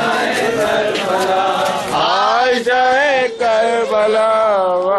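Male voices chanting a Muharram lament (nauha) in a crowd, one strong voice carrying a long wavering melodic line from about two seconds in. A few sharp slaps of hands beating chests come in the first two seconds.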